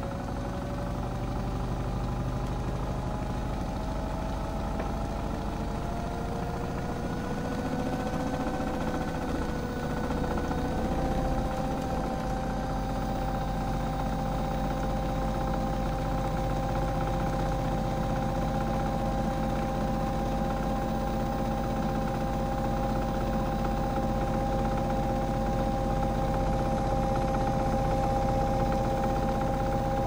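Modified Miele Softtronic toy washing machine's electric drum motor running with a whine that rises in pitch over about the first ten seconds, then holds a steady pitch as the drum turns at speed, most likely spinning up for the spin.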